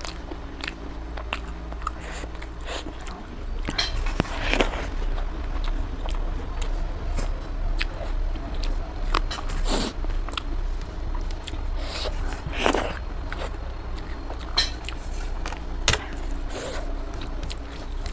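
Close-miked eating by hand: wet chewing and lip smacks, with sticky squelches of fingers mixing rice and chicken gravy, as irregular clicks and a few louder smacks over a steady low hum.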